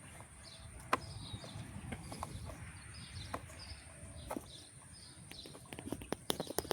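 Birds chirping in the background, with a few scattered sharp clicks and taps and a quick run of clicks near the end.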